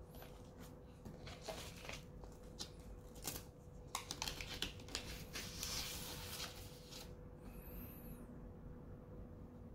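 Paper record inner sleeves rustling and vinyl records being handled: a run of crinkles and light clicks for about seven seconds, then a brief swish. A faint steady hum sits underneath.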